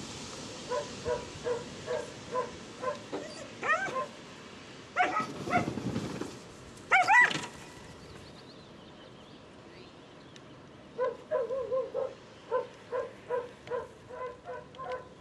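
Dog barking excitedly during an agility run: rows of short barks about two a second, with a few louder, higher-pitched yelps in the middle, the loudest about seven seconds in.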